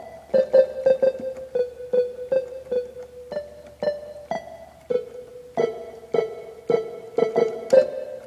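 A Yamaha electronic keyboard's "popcorn" sound-effect voice, played as a run of short, sharply struck pitched notes at about three a second. It sounds more like keyboard notes than popcorn popping.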